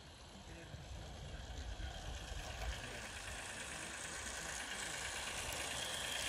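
Garden-scale model train, a small locomotive pulling a line of wagons, coming out of a tunnel and running past on its track, its running noise growing steadily louder as it approaches.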